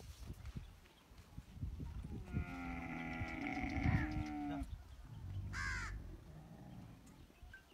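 Camel calling once: a long pitched call of about two seconds, starting about two seconds in. A short, high caw follows near six seconds.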